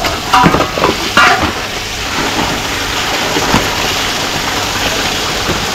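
Steady rush of flowing water, with a few short splashes and knocks in the first second and a half.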